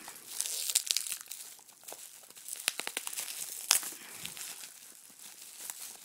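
Bubble wrap and scotch tape crinkling and crackling as they are pulled off a small box by hand, with scattered sharp crackles.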